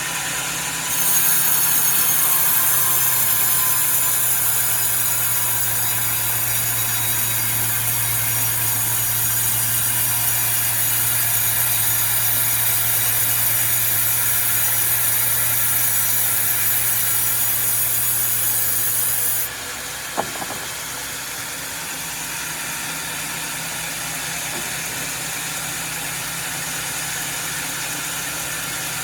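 Sawmill running with a steady engine hum. About a second in, the saw bites into a log and cuts with a loud, high hiss for almost twenty seconds, then stops suddenly as the cut ends. A single sharp knock follows, and the machine keeps running.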